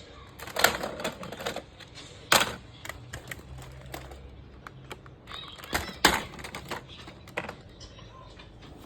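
Microwave popcorn kernels popping in a microwave oven: irregular sharp pops at an uneven pace, a few much louder than the rest.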